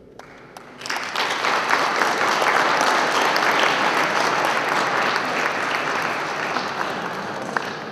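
Audience applauding: the clapping swells in about a second in, holds steady, then slowly dies away near the end.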